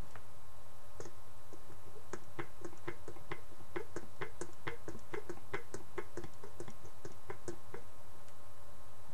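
A ventriloquist dummy's hinged jaw clacking open and shut: a run of short, irregular clicks, two or three a second, starting about a second in and stopping near the end, over a steady background hum.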